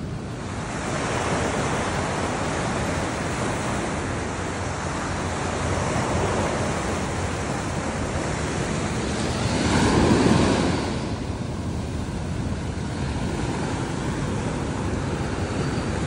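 Sea waves washing up on a sandy shore, one surging louder about ten seconds in.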